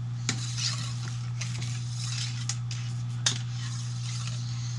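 Cleaning rod pushing an oil-wetted patch through a rifle barrel: scratchy rubbing strokes with a few sharp metallic clicks, the loudest a little past three seconds in, over a steady low hum.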